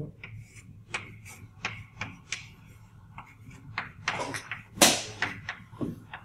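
Chalk writing on a blackboard: a quick irregular run of sharp taps and short scratches as characters are written, with a longer, louder scrape about two-thirds of the way through.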